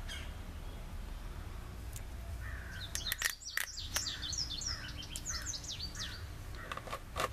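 A songbird singing: a quick run of short, high, falling chirps begins about two and a half seconds in. Beneath it is a steady low background rumble, and a few sharp clicks come in the middle and near the end.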